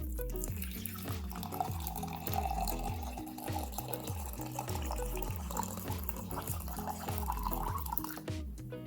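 Background music with a steady bass beat, over running water hissing from a tap that stops shortly before the end.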